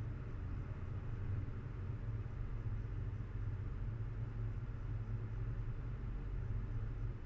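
A 4x4's engine running steadily under load as it climbs an unpaved dirt track, heard as a low, even drone with no change in pitch.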